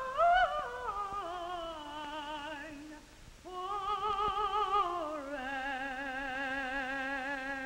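A female operatic soprano singing with strong vibrato: a falling phrase, a short pause about three seconds in, then a phrase that steps down to a long held note.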